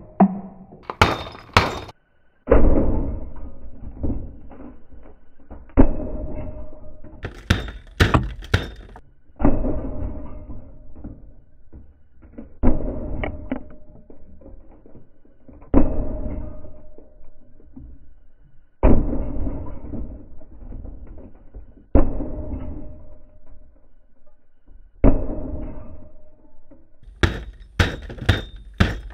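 Heavy hammer blows on a tabletop smashing a plastic KerPlunk toy and toy figures: about eight heavy thuds roughly three seconds apart, each ringing out afterward. Near the start, in the middle and near the end come sharp clattering bursts of quick hits and plastic pieces breaking.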